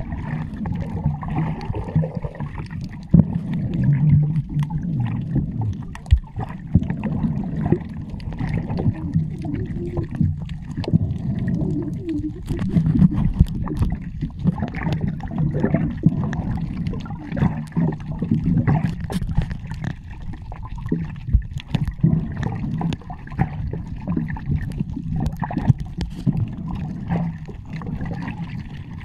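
Underwater sound picked up by the camera while snorkeling: a continuous muffled low rumble of moving water and bubbles, with many scattered small clicks and pops.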